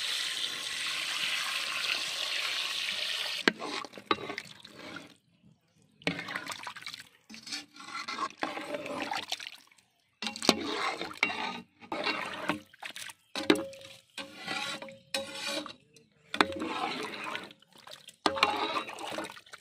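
Water poured in a steady stream into a large metal pot of chicken masala for about three and a half seconds, adding the cooking water for biryani rice. Then a metal ladle stirs and sloshes the thin gravy in uneven strokes.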